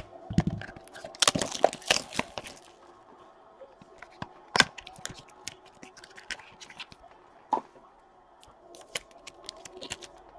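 A trading-card pack's wrapper being torn open and crinkled, with a dense run of crackling in the first couple of seconds, then scattered sharp clicks and snaps as the cards are slid out and handled.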